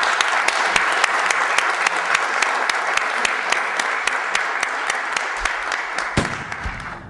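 A group of children applauding, with one pair of hands clapping close by in a quick, even beat over the crowd of claps. The applause breaks off near the end.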